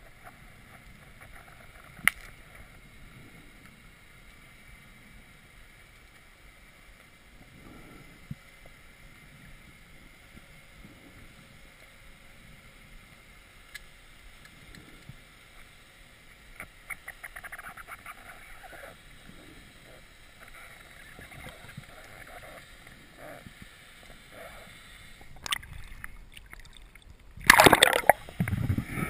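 Muffled underwater ambience through a submerged camera housing, with a single sharp click about two seconds in and a patch of fine crackling ticks midway. Near the end a loud rush of splashing water as the camera breaks the surface.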